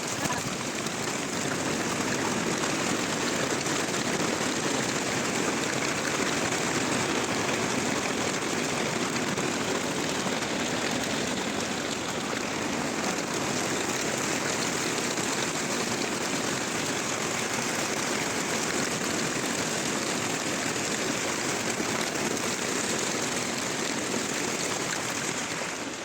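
Hailstones pelting down in a storm: a dense, steady hiss of countless small impacts.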